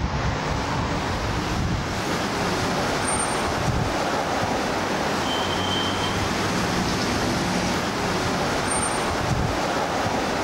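Steady outdoor street ambience: a constant rushing wash of traffic noise and wind on the microphone, with a few short, thin high tones.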